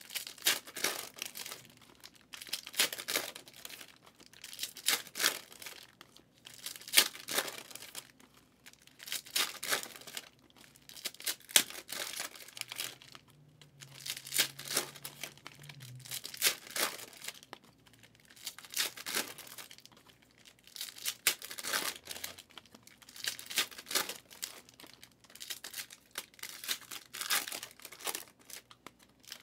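Foil wrappers of trading-card packs being torn open and crinkled, pack after pack, in short crackly bursts every second or two.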